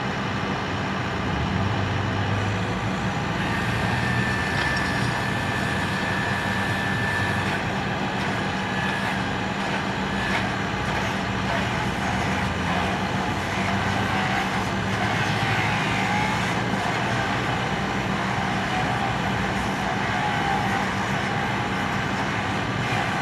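An engine running steadily with a constant low hum, a thin high whine joining it for about four seconds from about three seconds in.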